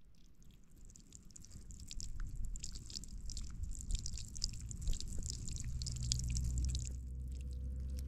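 Thin stream of water running out of the end of a black plastic hose and splashing onto stones: a fine, crackling patter that grows louder about two seconds in, over a low rumble.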